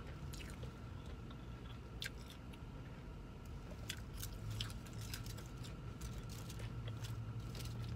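A person chewing and biting battered fried fish, with scattered faint crunches and clicks, over a low steady hum.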